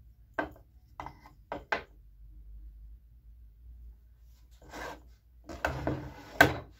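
Pieces of wood being handled on a board: a few light knocks as they are set down in the first two seconds. Later come rubbing and scraping as the wood and an electric nailer are shifted against each other, ending in a sharp knock.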